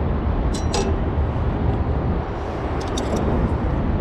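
Steady low outdoor rumble, with a few light clicks and clinks about half a second in and again around three seconds in.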